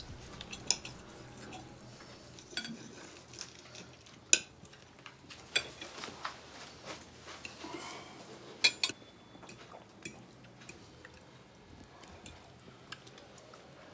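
Scattered light clinks and knocks of small hard objects being handled, with a few sharper knocks about four and nine seconds in.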